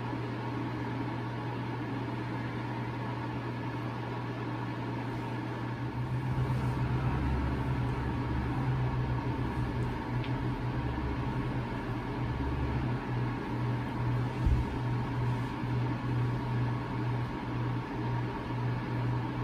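Steady low hum of room noise in a small room, growing louder and uneven about six seconds in, with one short knock near the middle.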